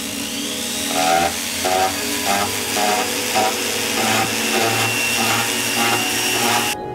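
Flex-shaft rotary handpiece running steadily with a fine bur against a small silver bracelet link, a high hiss with a faint whine, cutting off suddenly near the end.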